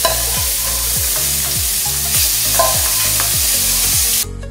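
Small seasoned shrimp searing in hot oil in a cast iron skillet: a steady, even sizzle that cuts off suddenly near the end.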